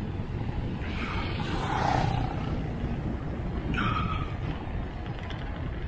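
Steady low rumble of wind and road noise while riding a bicycle, with a motor vehicle passing about two seconds in.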